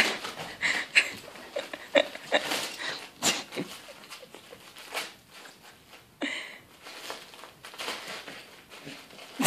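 A small dog tearing and chewing at wrapping paper on a present: irregular crinkling and ripping of paper.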